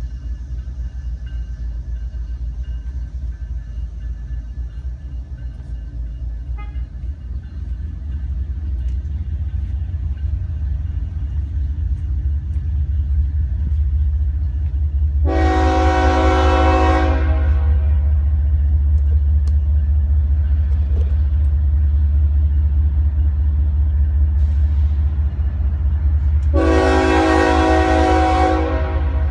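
CSX diesel locomotive approaching with a steady low engine rumble that grows louder, sounding its multi-note air horn in two blasts of about two seconds each, one about halfway through and one near the end.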